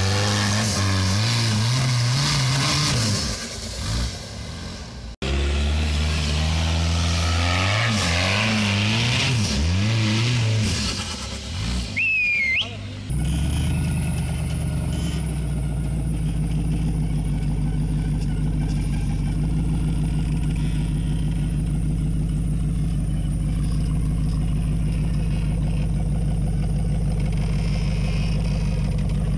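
An off-road trial vehicle's engine revs up and down repeatedly, cutting out abruptly about five seconds in. From about thirteen seconds it settles into a steady, deep running note.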